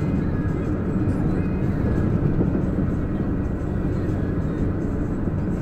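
Steady engine and road noise of a transport vehicle heard from inside the cab while driving at speed.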